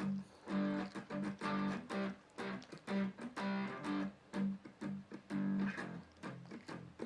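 Guitar being played, plucked or strummed chords in an even rhythm of about two strokes a second.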